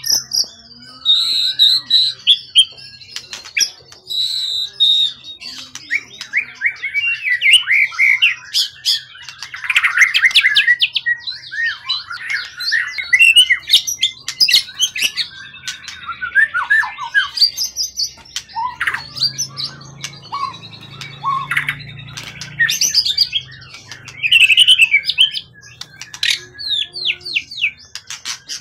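White-rumped shama (murai batu) singing an almost unbroken, varied song of rapid trills, whistled phrases and sharp clicking notes.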